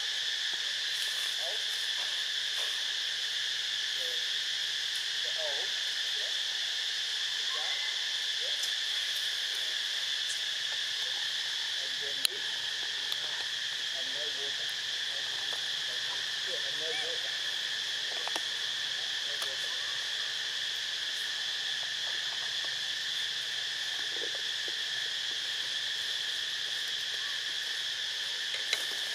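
Steady, high-pitched insect chorus holding several pitches at once, with faint short calls scattered beneath it and a single sharp click about twelve seconds in.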